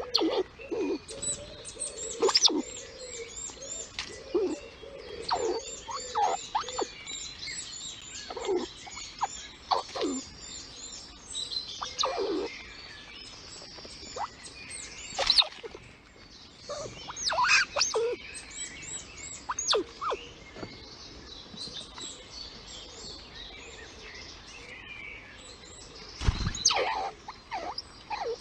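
Red squirrel mother squeaking at her kits in short, high calls that come on and off in quick series, with a thump near the end.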